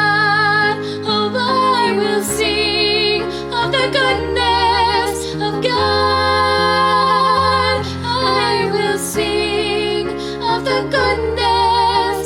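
Worship music: a melody held with vibrato over sustained low accompaniment notes that change every second or two.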